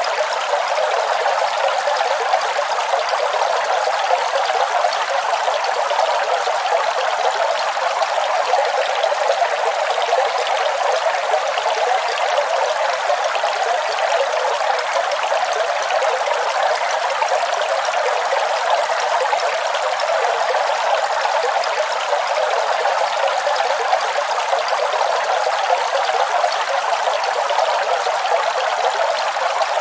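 Waterfall: a steady, unbroken rush of falling water, bright and without deep rumble.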